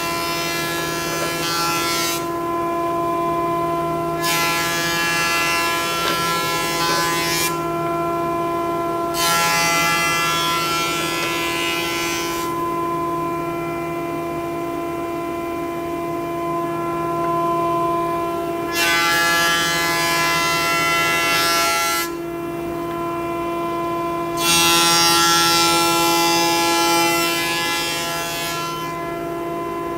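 Minimax FS41 Elite S combination jointer/planer running as a thickness planer, with a steady motor and cutterhead hum. Five boards feed through one after another, each giving a few seconds of loud planing noise from the knives cutting, with a longer pause between passes midway. The boards are being thicknessed to 18 mm at the slower 7 m/min feed speed.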